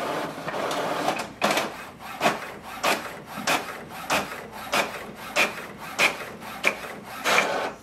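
HP OfficeJet Pro 9135e inkjet printer printing a two-sided page. Its paper feed runs steadily, then short clacks from the mechanism come about three a second, stopping just before the end.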